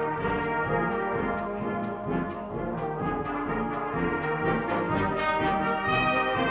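Colliery brass band playing a piece together, with several brass parts sounding at once over a steady beat.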